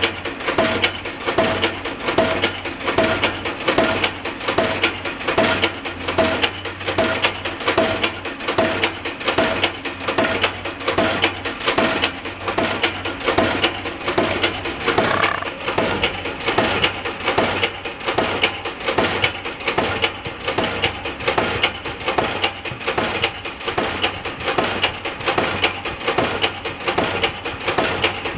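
Pile-driving hammer striking a pile in a steady rhythm, about two blows a second, each blow with a short metallic ring, over the steady low hum of the rig's engine.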